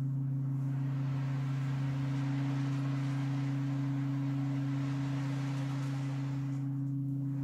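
Crystal quartz singing bowls sounding a steady, sustained low drone of two pure tones an octave apart, with a soft shushing wash from an ocean drum over it that thins briefly near the end.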